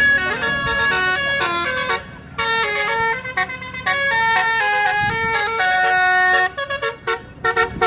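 Tour bus's telolet horn playing a quick tune of stepped notes. It breaks off briefly about two seconds in, then resumes and stops a second or so before the end, followed by a few short toots.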